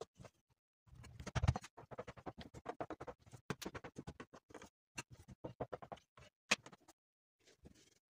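Hands shaping and pinching soft dough on a floured wooden table: a quick, irregular run of small taps, pats and scratches, with one sharper tap near the end.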